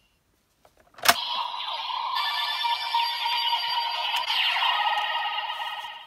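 Bandai DX Legendriver toy transformation belt playing a Legend Rider card sound: a click about a second in, then about five seconds of electronic sound effects and music from its small built-in speaker.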